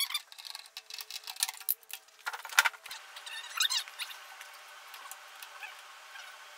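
Small metal clicks, ticks and scrapes of a screwdriver working the screws and cover of a planer's electrical switch box, busiest in the first three seconds and then thinning out.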